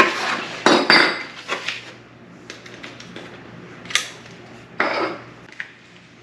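Handling noise of a plastic trail camera and its packaging on a wooden desk: clacks and rustles clustered in the first two seconds, a sharp knock about four seconds in, then a short rustle and a small click near the end.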